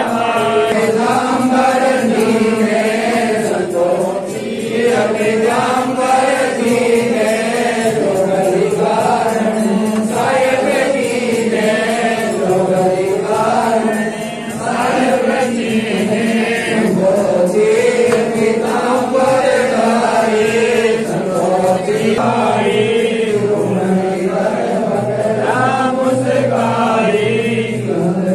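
Devotional chanting: voices singing a slow chant whose pitch bends up and down, going on without a real pause.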